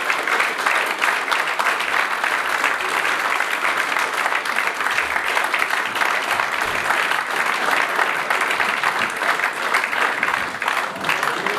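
Audience clapping steadily: sustained applause from a seated crowd.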